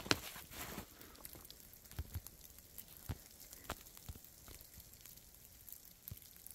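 Faint footsteps on dry ground and brush: a scattered, irregular series of light ticks and crackles.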